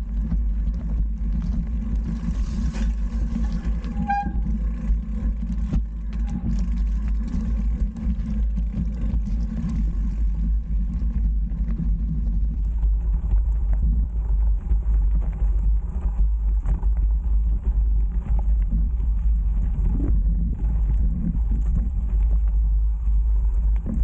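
Mountain bike rolling fast down a rocky dirt trail: a steady low rumble of tyres and wind buffeting the bike-mounted camera's microphone, with scattered clicks and rattles from the bike over the bumps.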